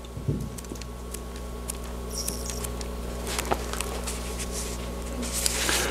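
Thin pages of a small Bible being leafed through: soft rustles and light ticks, over a steady low hum.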